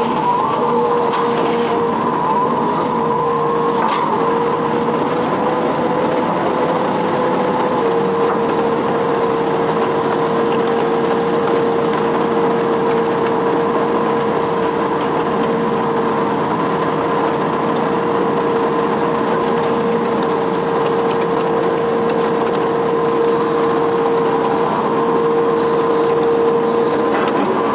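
Hitachi Zaxis 210F amphibious excavator running, its diesel engine and hydraulics giving a steady drone with a constant whine, and a short knock about four seconds in.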